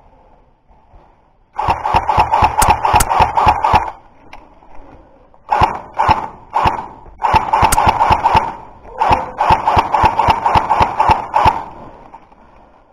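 Airsoft electric rifle firing four bursts of rapid automatic fire, each a quick run of sharp cracks, the first starting about one and a half seconds in.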